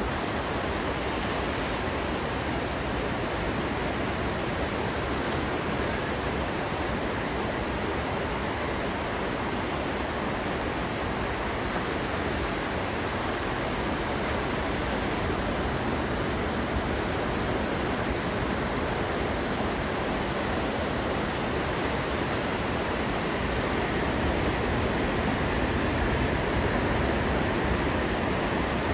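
Ocean surf breaking on the beach: a steady, unbroken rush of water noise, growing slightly louder near the end.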